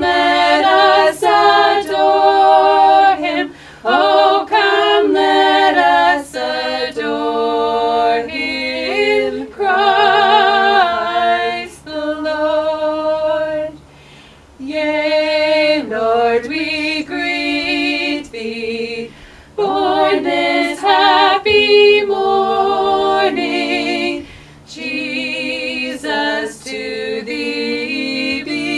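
Choir singing a Christmas carol a cappella, several voices in harmony with vibrato on held notes, phrases separated by short pauses.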